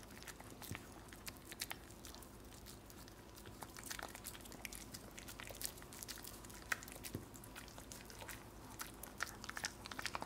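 Maltese dog eating a whole potato off a wooden floor: irregular chewing and biting, with many short wet clicks of its mouth and teeth.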